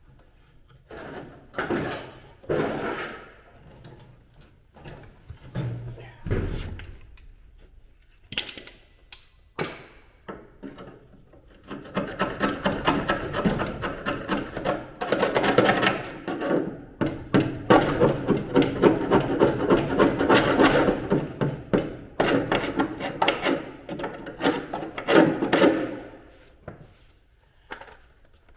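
Hand tool scraping over rusty car bodywork, cleaning surface rust off the metal by hand. A few separate scrapes and knocks come first, then a long run of fast back-and-forth strokes.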